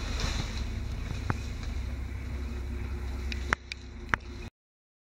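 A steady low rumble, with a few sharp clicks about three and a half and four seconds in; the sound then cuts off abruptly.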